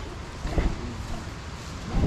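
Steady rushing hiss of a waterfall heard from a distance. There is a brief low rumble about half a second in.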